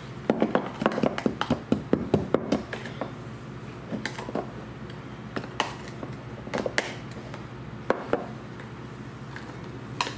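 Metal spoon scraping and knocking inside a jar of hardened, caked brown sugar, chipping it loose. A quick run of clicks for the first three seconds, then scattered knocks.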